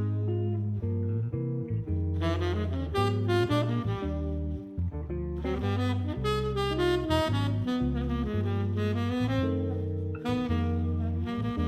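Jazzy background music with saxophone over a walking bass line.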